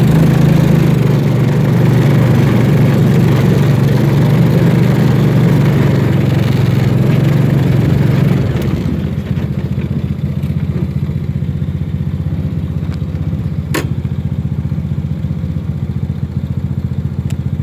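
A small engine, as on a farm ATV or lawn tractor, runs steadily and then drops to a quieter idle about halfway through. There is a sharp click near the end.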